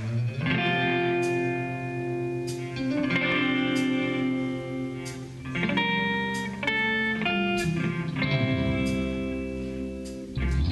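Live rock band playing an instrumental passage: electric guitars ring out sustained chords that change every second or two, with occasional sharp hits. A low rumble swells near the end.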